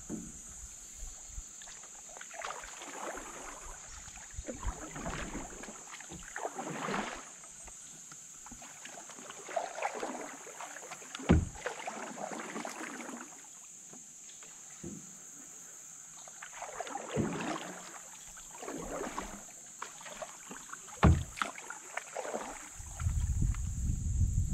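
Canoe paddle strokes: a paddle swishing through calm water every second or two, with a few sharp knocks, and a steady high hiss behind.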